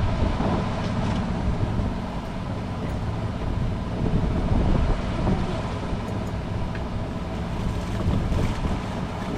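Wind buffeting the microphone on a small fishing boat at sea, over the boat's steady low rumble.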